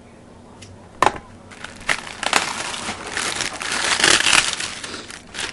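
Paper mailing envelope being torn open and crumpled by hand: a sharp snap about a second in, then rustling and tearing that grows loudest near the end.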